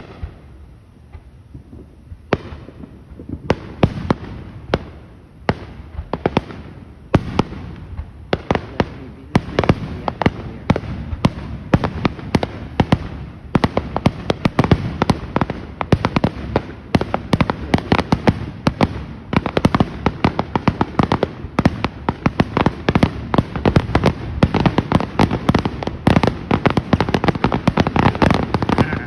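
Fireworks display: aerial shells bursting, at first a few separate bangs a second or so apart, then building into a dense, rapid barrage of reports and crackling toward the end, as in a finale.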